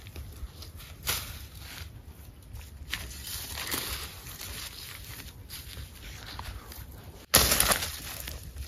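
Footsteps swishing and crunching through tall grass and brush, over a steady low rumble. About seven seconds in the sound drops out for an instant, then a louder rustle of vegetation close to the microphone follows.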